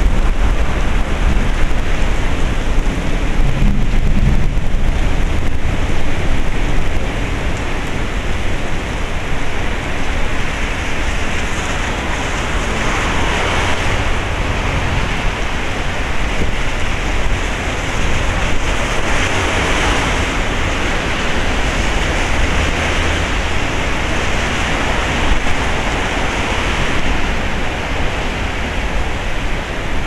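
Heavy typhoon rain pouring down steadily. A low rumble underneath eases after about seven seconds, and the downpour swells twice in the middle.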